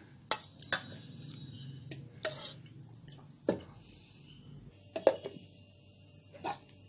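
A spoon clinking and scraping against a stainless-steel mixer-grinder jar as thick curd is spooned in: scattered sharp clinks and knocks, about eight in all, with a last knock near the end as the jar's plastic lid is handled.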